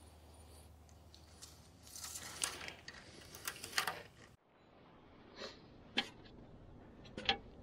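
Faint handling clatter: scattered light clicks and knocks of hard objects, as of tools and parts being handled around an engine. The sound cuts off abruptly about halfway through, then more isolated clicks follow.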